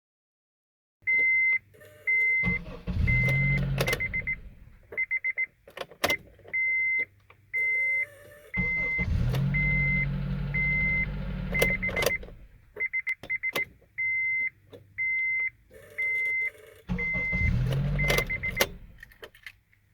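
Honda CR-V with its key turned to the start position three times: each time a buzz of a second or more comes instead of the engine cranking, with clicks as the key turns. The buzz is the sign of a failing ignition switch module that is not making contact inside. A high reminder chime beeps steadily about twice a second throughout.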